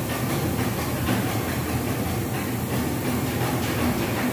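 Overhead electric bridge crane running, its hoist trolley travelling along the girder with a suspended steel roof frame, giving a steady mechanical running sound with a low hum.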